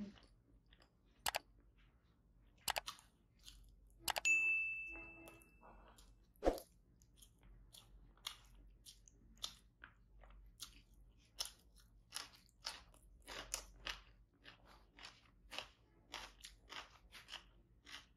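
Close-miked eating sounds: a person chewing mouthfuls of rice, egg curry and cabbage eaten by hand, as a steady run of short wet chews through the second half. Earlier come a few sharp clicks and a knock, one followed by a short ringing ding about four seconds in.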